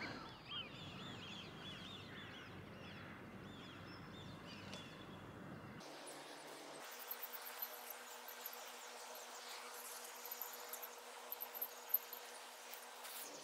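Faint outdoor dawn ambience: a small bird repeats short chirping notes over a low hiss. About six seconds in, the background thins to a quiet hiss with a few soft clicks.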